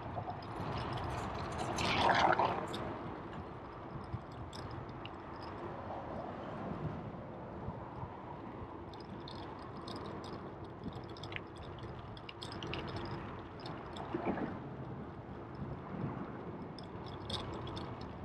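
Riding noise from a bicycle: a steady rush with scattered small rattles and clicks, and a louder swell about two seconds in.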